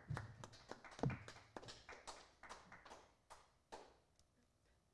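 Sparse applause from a small audience, irregular claps that thin out and stop about four seconds in.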